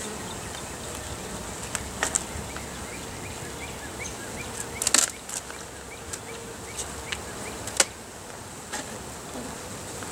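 Honeybee colony humming steadily from an opened hive. Over the hum come a few sharp clicks and scrapes of a metal hive tool working at the wooden hive boxes, the loudest about five seconds in and just before eight seconds.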